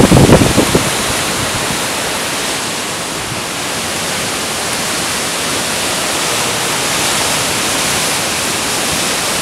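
Heavy rain of a severe thunderstorm pouring down in a steady hiss, with a loud, low burst in the first second.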